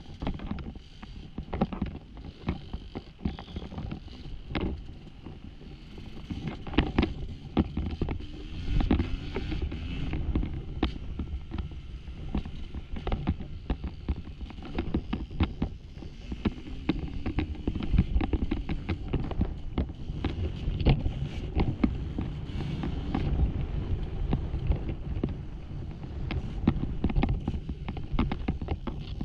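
Off-road dirt bike engine revving up and down while riding rough, rocky ground, with frequent sharp knocks and clatter from the bike, and wind on the microphone.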